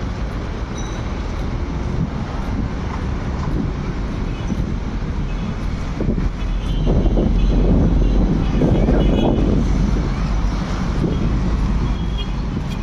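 Steady road-traffic noise from a busy street, swelling louder for about three seconds around the middle as vehicles pass close by.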